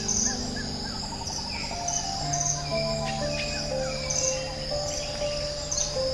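Steady insect trilling, like crickets, with a few scattered bird chirps, over soft ambient music of long held notes that step slowly downward.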